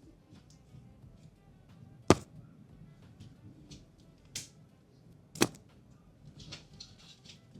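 Sharp clicks and knocks from handling and opening a desktop computer's case, two loud ones about two and five and a half seconds in and a softer one between, with faint rustling near the end.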